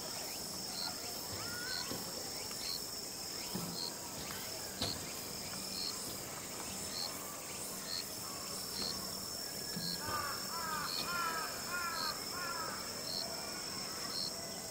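Crickets or other insects chirping steadily: a continuous high trill with a regular short chirp about once a second. About ten seconds in comes a quick run of about eight short rising-and-falling calls.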